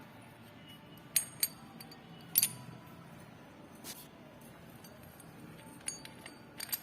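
Metal parts or tools clinking against each other: two sharp ringing clinks about a second in, a louder one at about two and a half seconds, and a few more near the end.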